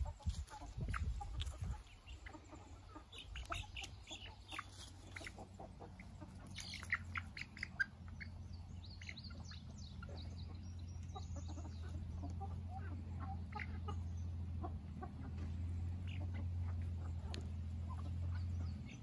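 Young chickens giving scattered short high calls while they peck at food in the grass. A steady low hum comes in about five seconds in and grows a little louder toward the end.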